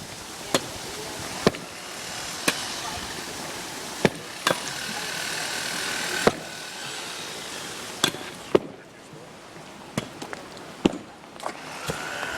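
Demolition of masonry: about a dozen sharp, hard knocks at uneven spacing, roughly one every second, over a steady background rumble.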